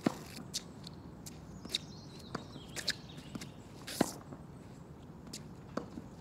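Tennis racket striking the ball twice, a sharp pock right at the start and another about four seconds in, with lighter knocks and footsteps on the court between.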